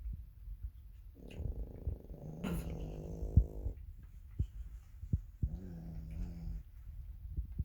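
Sleeping dogs snoring: long, even, buzzing snores with each breath, one running from about a second in for over two seconds and another near six seconds. A few short sharp clicks fall between and within them, the loudest in the middle of the long snore.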